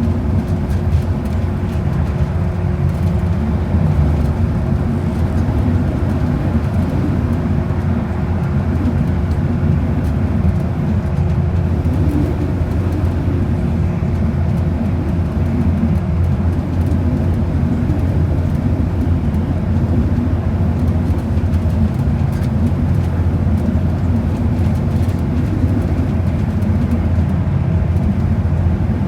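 Steady drone of a transit bus in motion, heard inside the cabin: engine and tyre rumble at an even level, with a faint steady hum over it.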